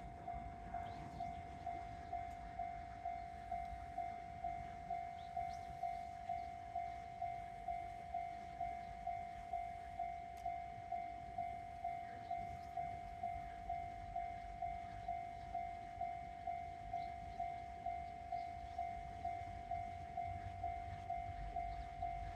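Japanese railway level-crossing warning bell ringing, an even electronic ding repeating a little under twice a second: the crossing is closed for an approaching train.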